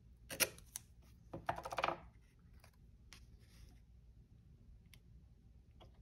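Paper sticker and backing handled and pressed onto a planner page: a short crisp crackle, then about half a second of crackly paper rustling, followed by faint soft rustles.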